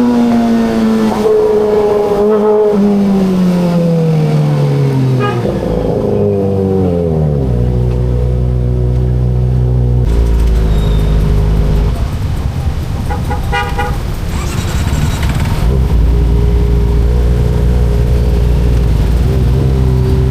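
Kawasaki ZX25RR's inline-four engine winding down from high revs, its pitch falling for about seven seconds, then idling steadily. About halfway through, a vehicle horn toots briefly.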